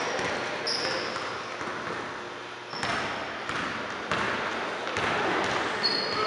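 A basketball is dribbled on a hardwood gym floor, with a few sharp bounces and several short, high sneaker squeaks, all echoing in a large hall.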